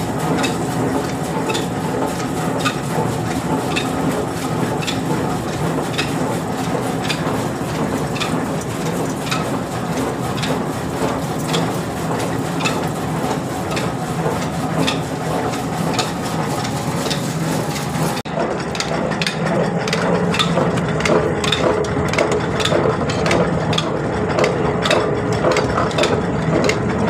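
Oil mill machinery running steadily, a continuous mechanical rumble with a regular sharp click a little more than once a second. Its character changes abruptly about two-thirds of the way through.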